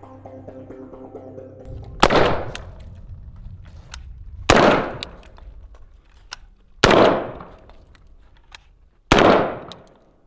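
Intro music fading out, then four single gunshots from a 5.56 AR-15 pistol (IWI Zion Z-15, 12.5-inch barrel), about two and a quarter seconds apart, each trailing off in a short echo.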